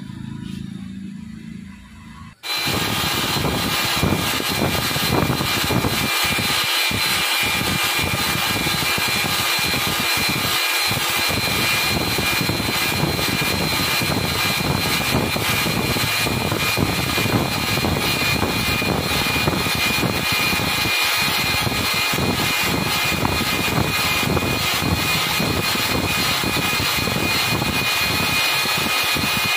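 Cylinder boring machine running, its boring bar turning inside a motorcycle cylinder bore to rebore it. The steady mechanical whine, with a high steady tone, starts suddenly about two and a half seconds in and holds.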